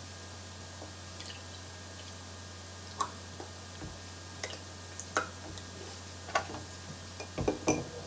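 Faint scattered drips, glugs and taps as orange juice is poured from a plastic jug into a drinking glass, over a steady low hum. There are a few louder clicks and knocks near the end as the jug is set down and a straw goes into the glass.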